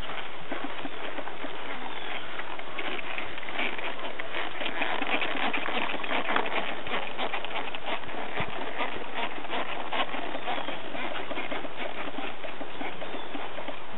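Thoroughbred horse's hooves on grass turf: an irregular clip-clop of soft hoofbeats over a steady hiss.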